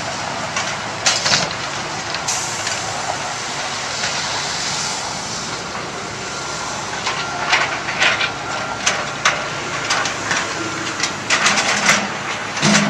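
Heavy earthmoving machinery loading broken concrete: a steady engine din with repeated sharp knocks and clatter of concrete chunks striking metal and each other, coming thickly in the second half.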